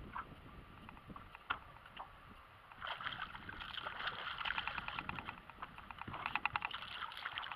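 Fishing reel being cranked and water splashing as a hooked bass is fought toward the boat, with a fast run of reel clicks near the end.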